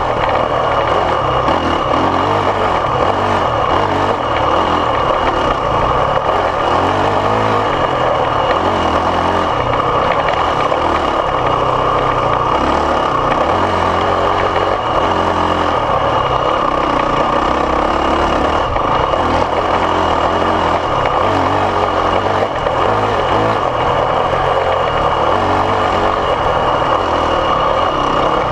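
Dirt bike engine running on a rough trail ride, its low note rising and falling with the throttle every second or two, over a loud steady rushing noise.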